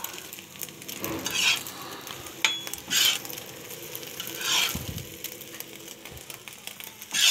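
A spatula scraping fried egg off a hot black griddle pan in several separate rasping strokes, over a faint sizzle from the pan.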